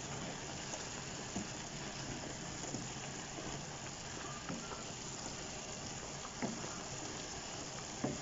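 Sliced chicken and mushrooms sizzling steadily in a pan, cooking in the water they have released, stirred with a wooden spatula that gives a few faint taps.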